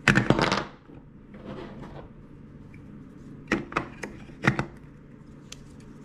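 Hard plastic clicks and knocks of GoPro batteries being handled and pushed into the slots of a FirstPower triple-slot charger: a clattering rattle right at the start, then several separate sharp clicks about three and a half to five and a half seconds in.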